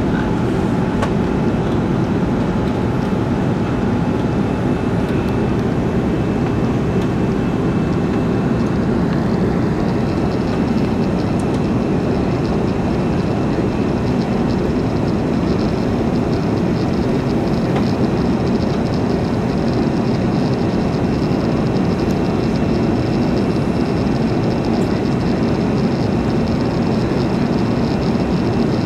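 Steady cabin noise inside an Airbus A330-300 in the climb after takeoff: a low, even rush of engines and airflow. A faint high whine joins about ten seconds in.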